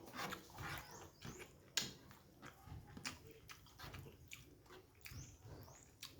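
Faint chewing and mouth sounds from a person eating: soft wet smacks and scattered sharp clicks.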